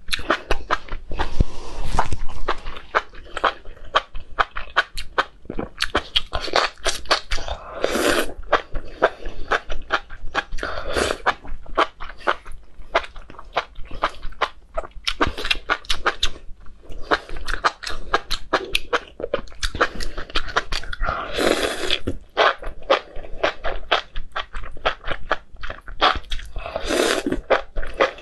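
Close-miked eating of spicy enoki mushrooms: a dense run of wet chewing clicks and mouth smacks, with louder stretches of slurping strands in every few seconds.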